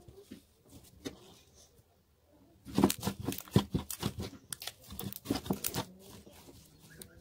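Homemade borax slime being pressed and kneaded against a tabletop by hand. About three seconds in it breaks into a dense run of sticky pops and crackles, which thin out near the end.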